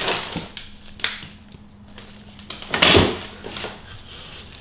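A greased suspension bushing being pushed by hand into a leaf spring eye: a few short squishing, scraping handling noises, the loudest about three seconds in, as the grease-packed bushing seats and seals.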